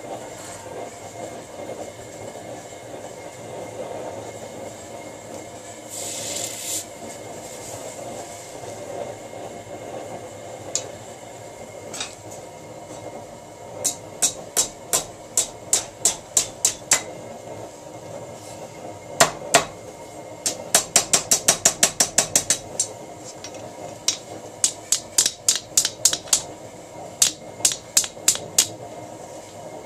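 Hammer blows on a red-hot bar of small square steel stock clamped in a bench vise, bending it. The strikes begin about halfway through in quick runs of about three a second, speed up to about six a second a little past two-thirds in, and carry on in short runs near the end, over a steady background noise.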